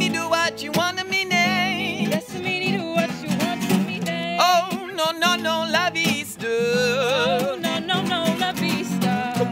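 Two acoustic guitars strummed together while a man and a woman sing, the voices wavering in a wide vibrato.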